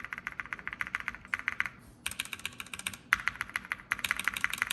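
Mechanical keyboard keys on Kailh Silver Speed linear switches tapped rapidly, about ten clicks a second, in bursts of about a second with short pauses between. A non-lubed switch and a lubed one are being compared; the lubed one is definitely quieter and a little smoother.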